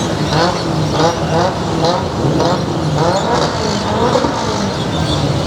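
Car engines running steadily in slow cruise traffic, with people's voices calling out over them every half second or so.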